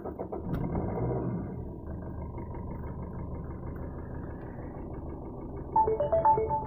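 Maruti Suzuki Swift engine running at a steady idle, heard from inside the cabin; it is a little louder for the first second and a half, then settles. Near the end, music from the car stereo starts again.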